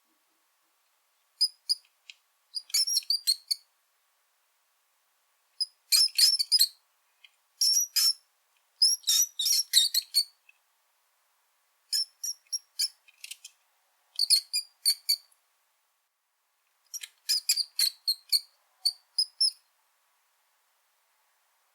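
Brown rat squeaking: quick runs of short, high-pitched squeaks in bouts of about half a second to two seconds, with silent gaps of one to two seconds between them.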